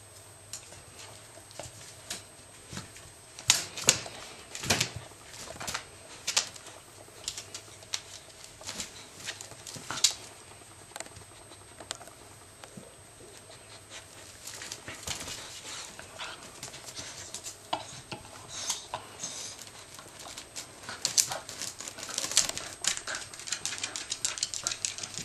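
Jack Russell terriers digging and nosing about in a wicker dog basket full of cushions and blankets, then moving about on the floor: irregular scratches, rustles and clicks, coming thicker and faster near the end.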